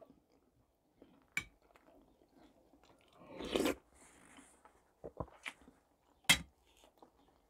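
Close-miked eating of shchi (cabbage soup): a few sharp clicks of a spoon, a short slurp about three and a half seconds in, and soft chewing.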